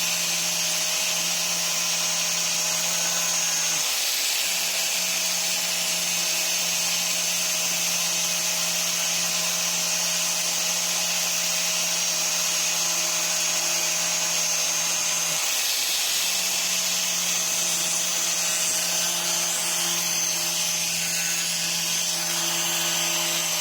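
Electric diamond core drill running steadily with a brazed diamond core bit, a constant motor hum and high whine over grinding hiss, the hum dropping out briefly twice.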